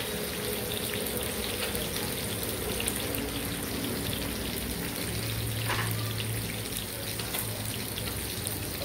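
Onion, ginger and garlic paste frying in oil with chilli powder: a steady sizzle with fine crackles. A low hum joins about five seconds in.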